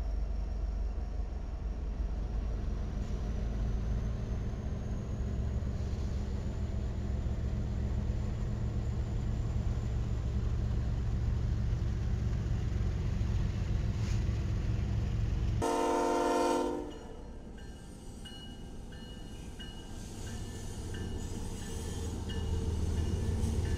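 BNSF diesel locomotives rumbling at low speed, with a short horn blast about 16 seconds in. After that the sound drops, then the low rumble of an approaching line of diesel locomotives builds toward the end.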